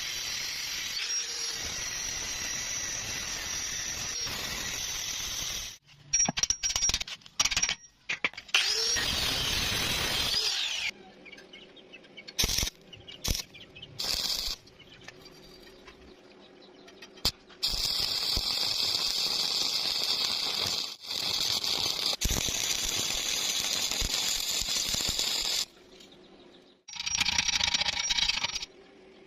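Metalworking tool noise: several long stretches of steady hissing, each a few seconds long, broken by short gaps with sharp clicks and knocks.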